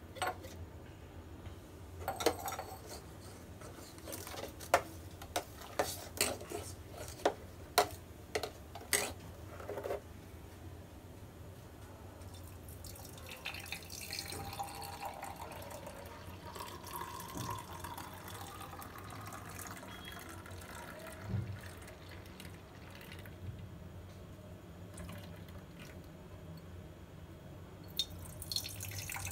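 A run of sharp clinks and taps of steel kitchenware through about the first ten seconds, then chocolate milkshake being poured from a steel pot into a glass: a soft liquid pour for most of the rest.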